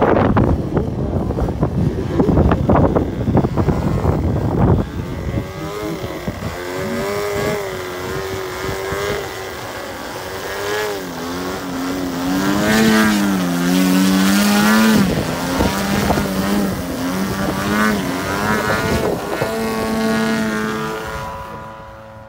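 Desert Aircraft DA-70 twin-cylinder two-stroke gasoline engine of a Flex Innovations Mamba 70 aerobatic RC plane hovering on its propeller, its note rising and falling as the throttle is worked to hold the hover. The first few seconds are a loud rushing noise; the engine note is loudest about midway and fades near the end.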